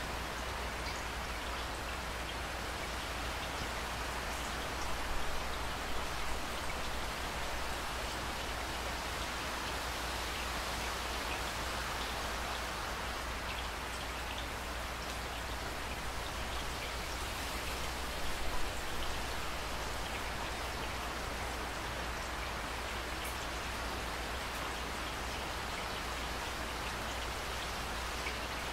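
Steady rain falling, with single drops ticking close by. It swells briefly louder about five seconds in and again about eighteen seconds in.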